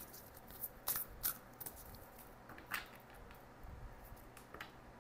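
A deck of tarot cards being shuffled by hand: a handful of short, faint swishes of cards sliding against each other, spaced irregularly.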